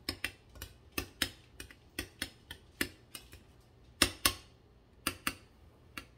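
Metal spoon clinking against a glass mixing bowl while stirring a thick soup and sour cream mixture: irregular clinks a few times a second, with two louder ones about four seconds in.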